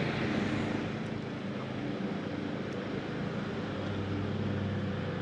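A steady low motor hum under an even wash of wind and water noise.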